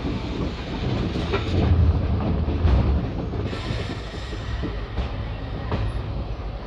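Passenger train running, heard from on board: a steady low rumble of the coach, with a few sharp clacks as the wheels cross rail joints.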